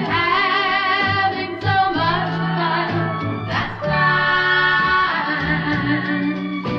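A 1964 pop record: held sung notes with vibrato over a band backing with guitar.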